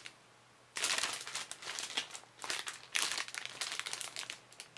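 Clear plastic packaging bag crinkling as it is handled, an irregular run of rustles and crackles that starts about a second in and dies away near the end.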